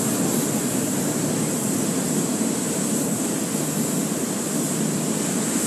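Pressure-wash wand spraying foaming prep soap onto a car's paint: a steady rushing hiss with a low hum beneath it.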